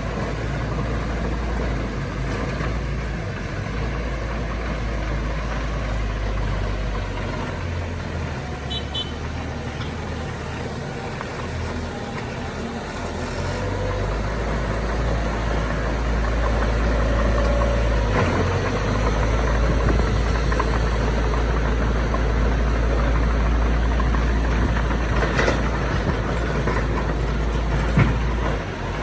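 Heavy diesel engine of earthmoving machinery running steadily, its low rumble growing louder about halfway through, with a couple of sharp knocks near the end.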